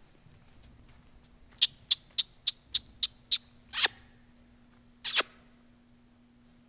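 A person making a quick, even run of seven short kissing sounds to a horse, then two longer ones, the squeaky lip-smacks used to urge a horse on.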